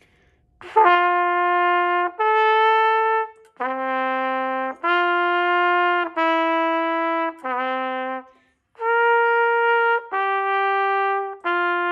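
B-flat trumpet playing the concert F major arpeggio slowly, one held note at a time. About nine separated notes of roughly a second each, starting about a second in and leaping up and down between low and high notes.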